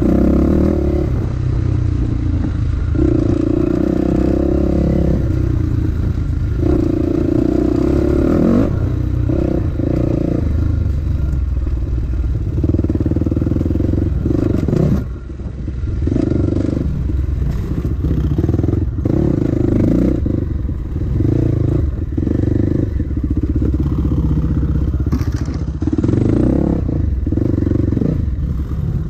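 Dirt bike engine running hard on tight bush singletrack, its note climbing and falling back over and over with the throttle, dropping off briefly about halfway through, with rattles and knocks from the bike over the rough trail.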